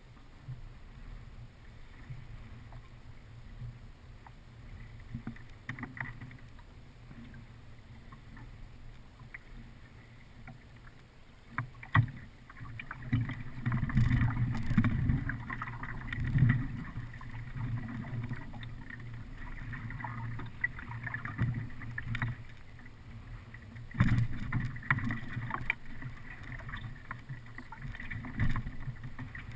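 Choppy water slapping against the hull of a small aluminum fishing boat, with wind rumbling on the microphone in gusts. A few sharp knocks sound through it, the loudest about twelve and twenty-four seconds in.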